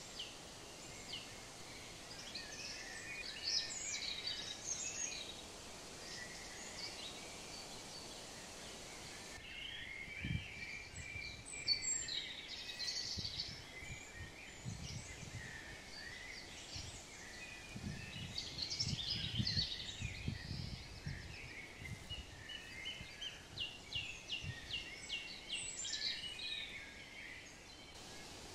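Small songbirds chirping and trilling on and off over a steady outdoor hiss, with low rustling thumps through the middle stretch.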